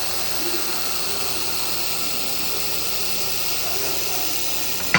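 Welding running with a steady, even hiss, cut off by a sharp click near the end.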